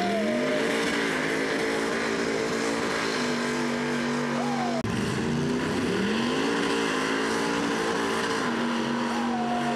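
Lifted pickup-truck engines revving up and held at high rpm, pulling against each other in a chained truck tug-of-war. The revs climb for about a second and then hold steady, twice, with a sudden break about halfway.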